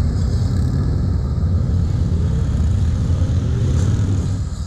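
Several police motorcycles running at low speed through a cone course, their engines a steady low drone with a couple of brief rises in revs.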